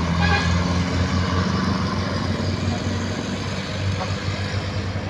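Truck engine running close by, a steady low pulsing throb over road noise.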